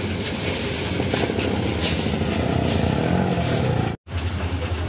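Ballast train's hopper wagons rolling slowly along new track, a steady rumble with scattered clanks. The sound breaks off for a moment about four seconds in.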